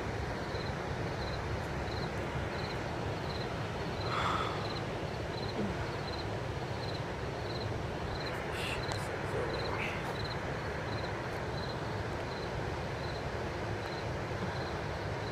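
An insect chirping steadily outdoors at night, a short high chirp repeating evenly about three times a second, over a steady low background rumble.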